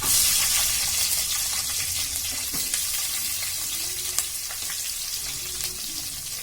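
Sliced onions hitting hot oil in a heavy pan: a sudden loud sizzle that settles into a steady, slowly easing frying hiss, with a few light clicks of stirring.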